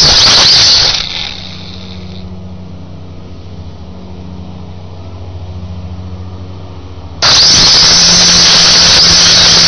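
Small camera quadcopter's motors and propellers whining, picked up by its own onboard camera: a loud, distorted high squeal for about the first second, dropping to a much quieter low hum, then loud again from about seven seconds in.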